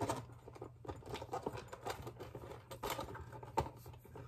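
Plastic fishing tackle boxes and lures being handled: scattered light clicks and knocks, with a couple of louder ones a little after halfway.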